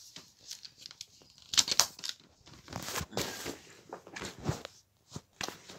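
Handling noise as a charger is unplugged from a power strip and gathered up: irregular clicks, knocks and rustles of plastic, cable and bedding, the loudest about two seconds in.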